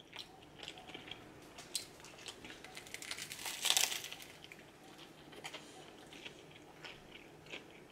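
A man chewing a mouthful of cheeseburger with faint, scattered mouth clicks. He bites into the burger again about three and a half seconds in, the loudest moment.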